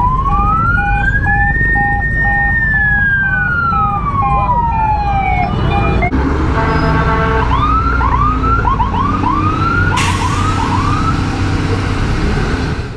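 Emergency vehicle siren: one long wail rising, holding and falling over about five seconds, then switching to a faster run of short rising whoops, over a low traffic rumble. A hiss joins about ten seconds in.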